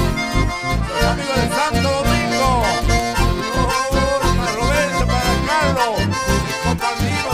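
Live band music led by two accordions playing the melody over strummed guitars and a steady, regular bass beat.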